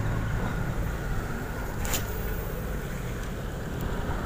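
Steady low outdoor rumble of distant traffic, with one sharp click about two seconds in.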